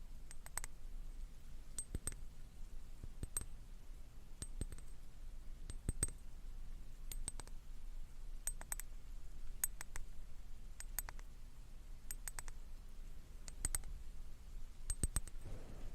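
Soft, crisp clicking in small clusters of two or three clicks, repeating about every second and a bit.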